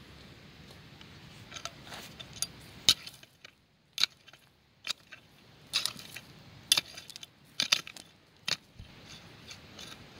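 Metal hoe blade chopping into stony soil, a sharp clink of metal striking stones with each stroke, about one stroke a second.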